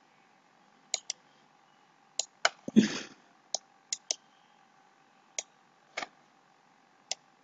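Computer mouse clicking about ten times at irregular intervals as a PDF page is scrolled, over a faint steady hum, with one brief louder noise about three seconds in.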